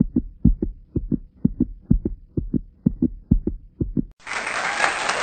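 A heartbeat-like sound effect: short low thumps in close pairs, about two pairs a second, that stop just after four seconds in. Loud applause then starts suddenly.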